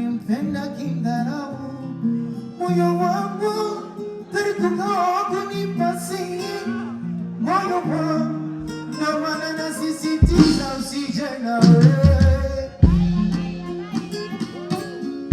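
Music: a voice singing over guitar and held bass notes, with a heavy low bass coming in about ten seconds in.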